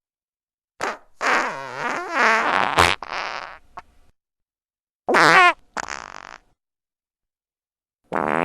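Fart sound effects played one after another with dead silence between them: a long fart with a wobbling pitch, then a shorter one with a rough tail, and another starting near the end.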